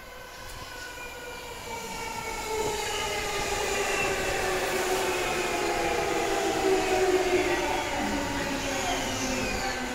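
Musashino Line E209-series 900 subseries electric train, eight cars, pulling slowly into the platform, growing louder as it comes near. Its motor whine falls steadily in pitch as it brakes, over a steady rumble of wheels on rail, with faint high squeals near the end.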